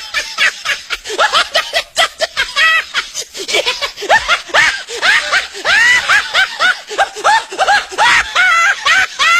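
High-pitched laughter: rapid short bursts, several a second, each rising and falling in pitch.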